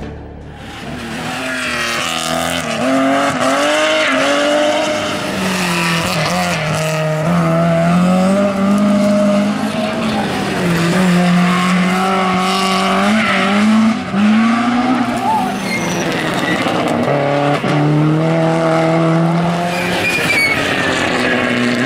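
Rally car engines driven hard past the spectator, revving up and dropping back again and again as the cars accelerate and shift gear.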